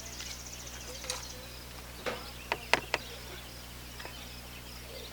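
A high pulsed insect trill that stops about a second in, then four sharp clacks in quick succession between about two and three seconds in, like utensils or containers being handled.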